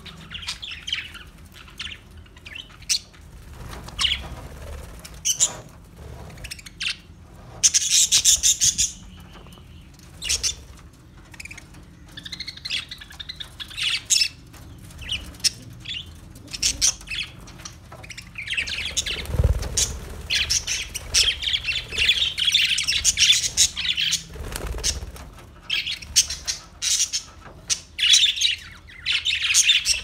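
A flock of budgerigars chattering, a continuous jumble of short chirps, squawks and warbles. It gets busiest about eight seconds in and again through the middle of the second half.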